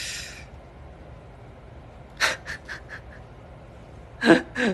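A man breathing out heavily after singing, fading in the first half second. A few short soft clicks follow about two seconds in, then a short loud vocal sound near the end.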